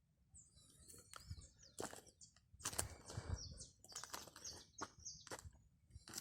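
Small birds chirping in quick, high notes, with scattered sharp clicks and knocks.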